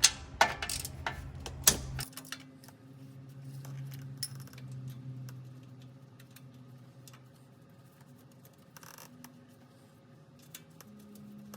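Sharp metallic clicks and clinks of a wrench and 13mm socket working the starter's ground-wire nut, several loud ones in the first two seconds, then only sparse faint clicks over a faint low hum.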